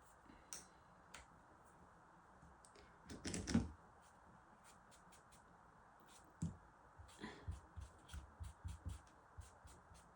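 Light clicks, taps and knocks of small nail-stamping tools being handled and cleaned, with a louder cluster of knocks about three seconds in and a run of light ticks in the second half.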